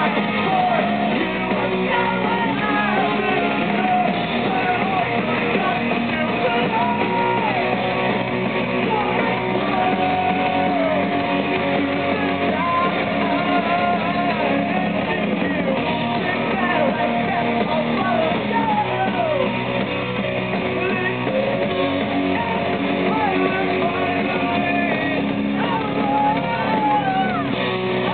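Live pop-punk band playing a song: distorted electric guitars, bass and drums under a sung lead vocal, recorded from within the crowd.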